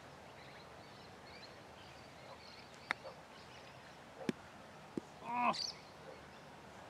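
Faint sharp clicks of a golf club chipping balls off fairway grass: three ticks spread over about two seconds. They are followed, about five seconds in, by a brief wavering call, the loudest sound.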